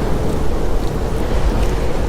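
Ocean waves and surf: a steady low rumble of water with no single wave crash standing out.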